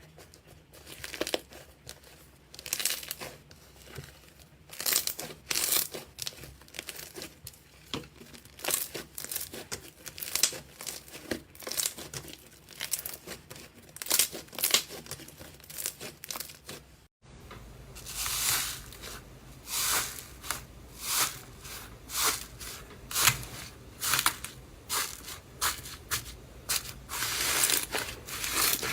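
Slime being worked, giving a steady run of irregular crackling, popping sounds. Partway through it cuts to another clip in which a low steady hum runs under the crackling.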